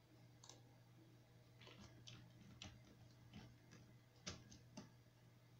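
Computer mouse clicking: about eight faint, irregularly spaced clicks over a low steady hum.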